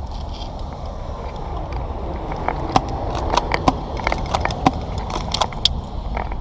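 Airsoft guns firing: a string of sharp, irregular snaps and clicks starting about two and a half seconds in and lasting about three seconds, over a steady low rumble.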